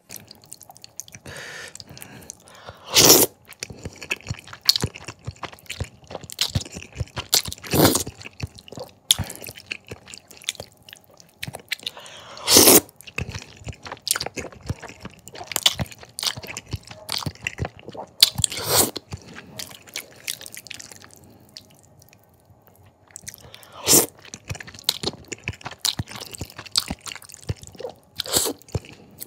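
Close-miked eating of thick jajangmyeon udon noodles in black bean sauce: wet chewing and mouth clicks, broken by five loud, short slurps of noodles spaced several seconds apart.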